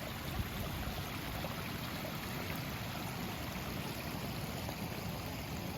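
A steady, even rushing noise, with one faint tap about half a second in.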